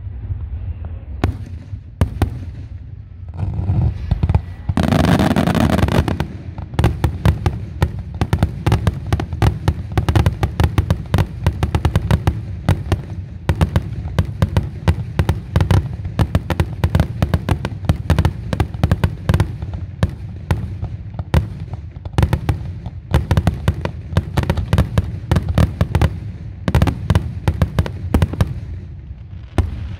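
Aerial fireworks display: a rapid, dense barrage of sharp bangs and crackles, with a louder, longer burst about five seconds in. It thins out near the end.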